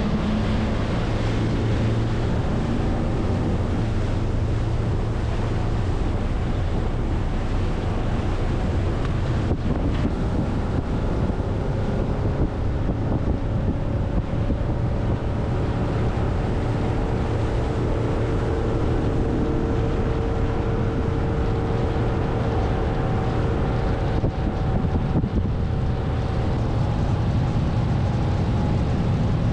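Motorboat running steadily at speed, its engine drone mixed with wind blowing across the microphone.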